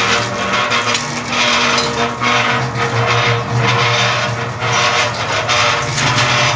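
Half-bag chain-drive mortar mixer running empty: its electric motor hums steadily under a metallic rattle from the chain drive and turning paddles, which swells and fades in an even pulse.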